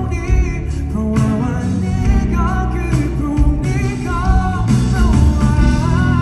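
A male singer singing live into a handheld microphone over an amplified backing band, his voice gliding between held notes.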